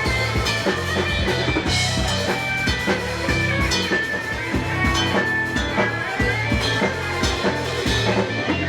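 Rock music with electric guitar, bass and a drum kit playing a steady beat.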